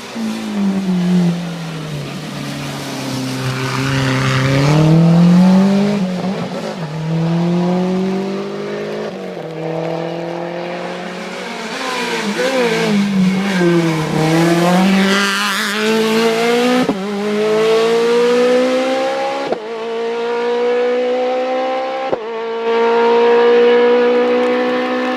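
Rally car engine revving hard through a stage: the revs drop twice as the car brakes, then climb again in steps through the gears, with a long rising pull through the second half. It is loudest about five seconds in and again near the end.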